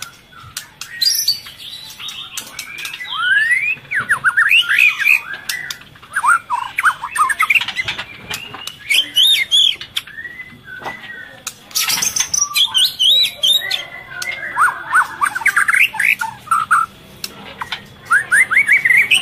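White-rumped shama (murai batu) giving quick runs of short chirps and squawky notes in repeated bursts, with scattered sharp clicks between them.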